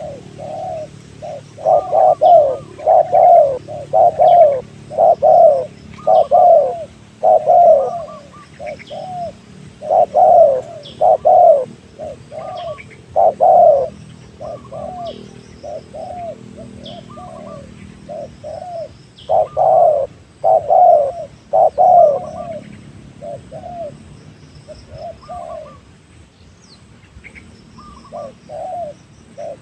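Spotted dove cooing: loud low coo phrases repeated in groups, with short pauses between. Small birds chirp faintly in the background.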